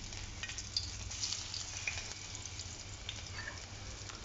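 Chopped garlic sizzling gently in hot oil, with a faint steady hiss and scattered small crackles as it starts to fry.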